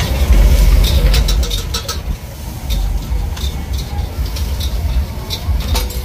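A steady low rumble, heaviest in the first two seconds, with scattered sharp metallic clinks of a ladle and spoons against stainless-steel mixing bowls.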